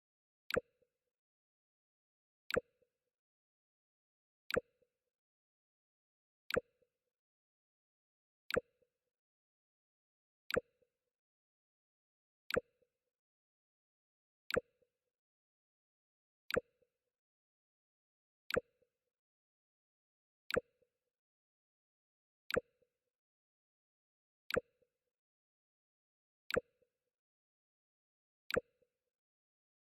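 Mac OS X 'Jump' system alert sound played over and over: a short, sharp click with a brief low tone right after it, repeating evenly about every two seconds, with silence in between.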